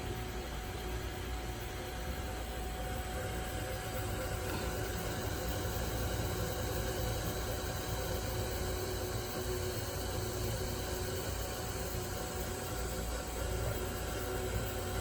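Desktop 3D printer running: a steady whirring hum with a faint constant whine.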